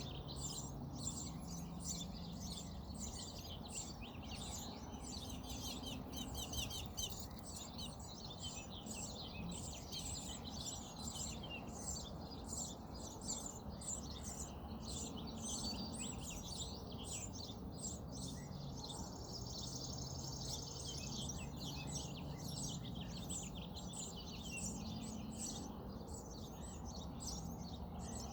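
Small birds chirping rapidly and continuously in high, thin notes, with a low steady hum underneath.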